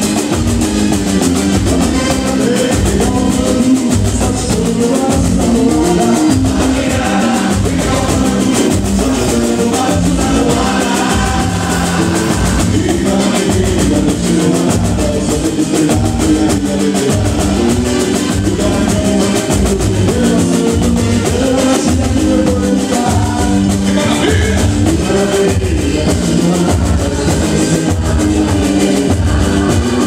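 Live boi-bumbá toada: a man singing into a microphone over a percussion band of large bass drums and a smaller drum keeping a steady beat.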